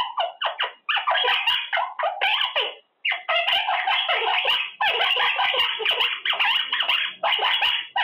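Quaker parrot (monk parakeet) chattering in rapid, scratchy strings of calls, pausing briefly about one and three seconds in.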